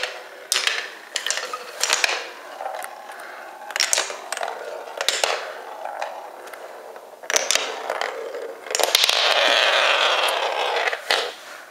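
A glass marble running through a wooden marble run: a series of sharp clicks and knocks as it drops through the blocks and hits the wooden curves, with rattling rolling between them. Near the end comes a longer, louder rolling run of about two seconds that stops suddenly.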